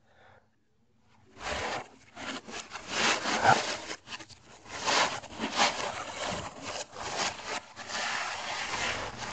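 Christmas wrapping paper crinkling and tearing as a gift is handled, a run of uneven scratchy rustles that starts after about a second and a half of near silence.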